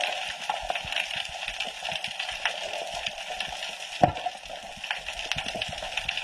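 Underwater ambience picked up through a camera housing on a rocky reef: a steady hiss full of small irregular clicks and crackles, with one sharper click about four seconds in.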